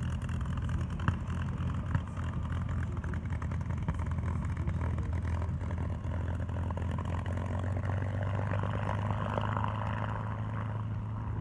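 P-51D Mustang's Packard Merlin V-12 engine running steadily at taxi power, a low even drone.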